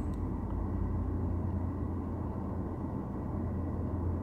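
Steady low rumble inside a car's cabin: an even low hum with no distinct events.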